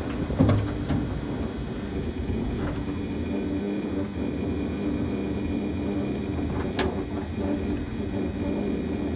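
Steady low vehicle rumble with a faint hum, a single thump about half a second in and a sharp click near seven seconds.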